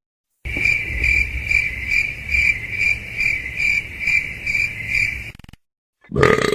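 Cricket chirping sound effect: a steady run of high chirps, about two a second, over a low background rumble, cutting off suddenly after about five seconds.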